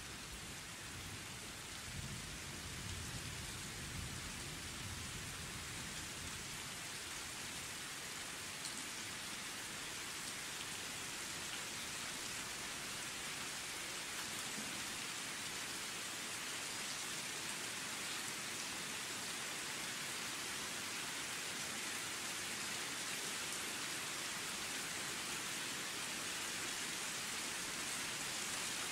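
Steady rain falling, with a low rumble of distant thunder in the first few seconds.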